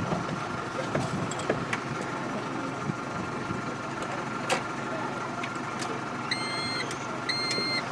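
Keys jingling and clicking at the ignition of a Volkswagen truck. About six seconds in, the dashboard warning beeper starts an even series of beeps, about one a second, as the ignition is switched on.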